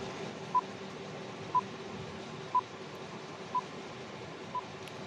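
Countdown timer beeping: five short, identical beeps about a second apart, over a faint steady hiss.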